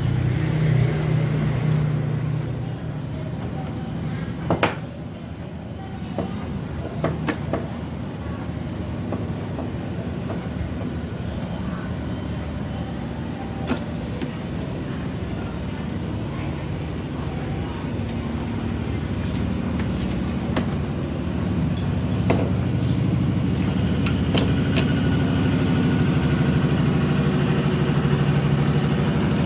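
A steady low engine-like rumble that swells near the start and again towards the end, with a few scattered sharp clicks over it.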